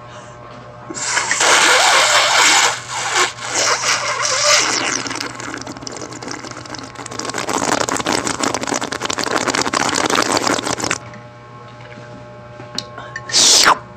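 Loud, rough slurping and gurgling through a straw from a small plastic drink bottle held close to the microphone, running for most of ten seconds with a brief break near three seconds, then stopping; a short breathy burst follows near the end.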